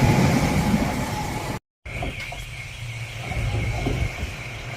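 A passenger train running past on the rails, with a steady high tone over the rail noise. It cuts off abruptly about a second and a half in, leaving a quieter low hum.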